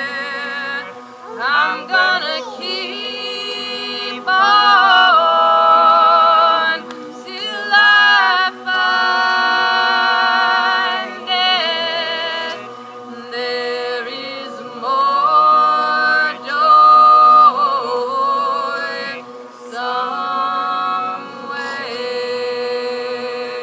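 A choir singing unaccompanied: a steady drone note is held underneath while the melody moves above it in long, wavering held notes, phrase by phrase with short breaks between.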